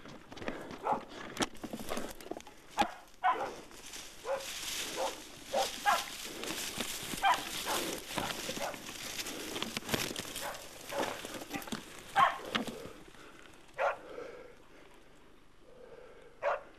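Hunting dogs barking in short, repeated barks, over the rustle and crash of movement through scrub, which dies down in the last few seconds before one more bark near the end.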